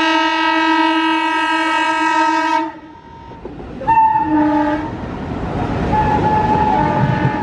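Horn of the twin WDM-3D diesel locomotives sounding one long multi-tone blast as they approach, cutting off about two and a half seconds in. A short second blast follows about a second later as the locomotives draw alongside, then the steady rumble of the diesel locomotives and coaches running past close by.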